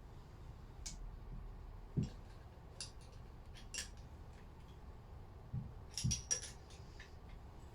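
Light metallic clinks and ticks of hand tools and metal engine parts being handled, with a few dull knocks about two seconds in and again near six seconds.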